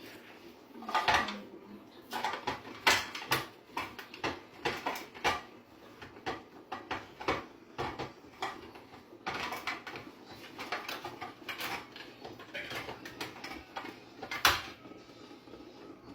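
Metal kitchenware clinking and knocking: a string of irregular sharp taps and clatters, with louder knocks about a second in and near the end.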